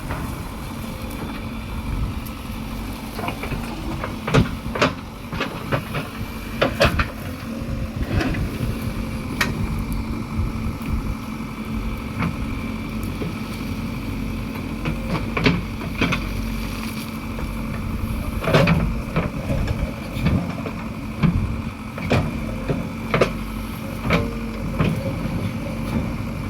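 JCB 3DX backhoe loader's 76 HP diesel engine running steadily at work, with many sharp knocks and clanks spread through.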